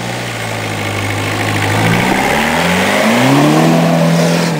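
Peugeot 306 1.9 turbo-diesel field car engine running hard. Its note holds steady for about two seconds, then climbs in pitch as the revs build, holds high, and drops away right at the end.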